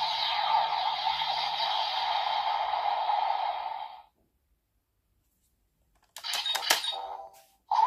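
Electronic sound effects from a Premium DX Laser Raise Riser toy: a steady hissing energy effect cuts off about four seconds in. After a short silence comes a rapid cluster of sharp clicks and short effect sounds.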